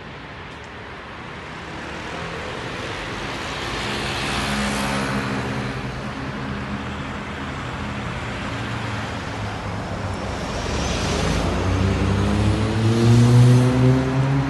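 City street traffic: vehicles pass close by with a steady hiss of tyres and engines. Engines rise in pitch as they accelerate about four seconds in and again near the end, where it is loudest.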